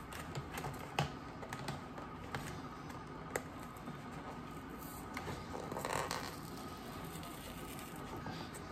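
Cardboard packaging being worked open by hand: scattered small clicks and scrapes, with a longer rustle about six seconds in.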